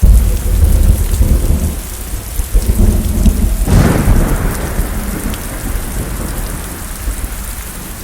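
Thunderstorm: heavy rolling thunder over steady rain, starting abruptly with a loud clap, with a sharp crack of thunder about four seconds in, the rumble slowly fading toward the end.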